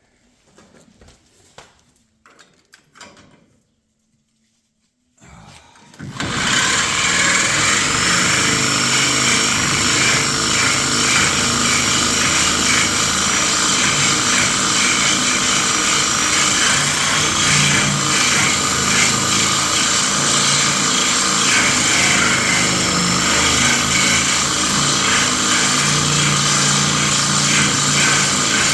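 A few faint handling sounds, then about six seconds in an angle grinder with a cutoff wheel starts and runs continuously and loudly, cutting through a leaf-spring bolt.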